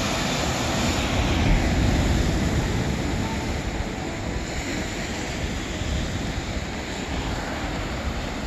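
Ocean surf breaking and washing over shoreline boulders: a steady rush of water with a heavy low rumble, swelling a little between one and two seconds in.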